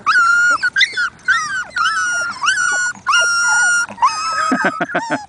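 Labrador retriever puppies whining for attention: a run of about seven high-pitched whines, each under a second, that rise, hold steady and then drop away. Near the end comes a quick string of shorter, lower yelps.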